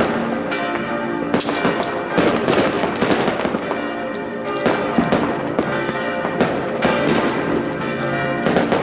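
New Year's Eve fireworks: rockets and firecrackers banging and crackling in a dense, irregular series of overlapping bursts, some louder and closer than others. Bells ring steadily underneath.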